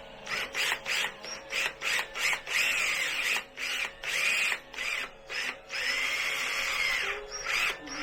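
A bolt being turned with a screwdriver against a spanner, drawing a nut into a styrene plastic shoulder hub: a run of short squeaking, grinding turns with a longer one near the end. It is the sound of the nut being pulled in tight so that it locks and won't spin.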